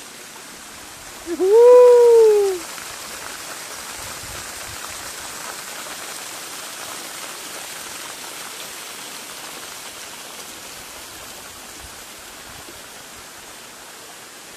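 Steady rushing hiss of a thin waterfall, little water falling over a tall drop. About a second and a half in comes one loud drawn-out voice call, rising and then falling in pitch, lasting about a second.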